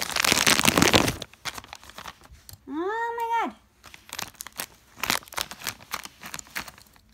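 Clear plastic packaging bag crinkling loudly as it is handled, then sharper scattered crackles as scissors are worked into it. About three seconds in, a short strained hum from the person opening it.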